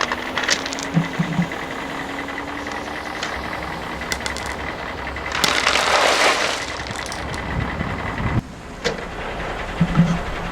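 Toy dump truck tipping its load of stones: scattered plastic clicks, then a rattling rush of about a second past the middle as the rocks slide out of the bed.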